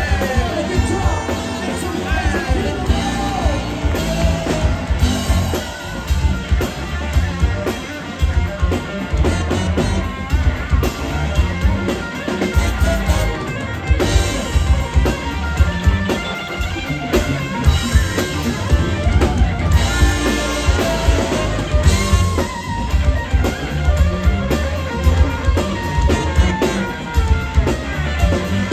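Live funk-rock band playing loud and continuous, with drum kit, bass, electric guitar and horns over a driving beat, heard from the audience in an open-air amphitheatre.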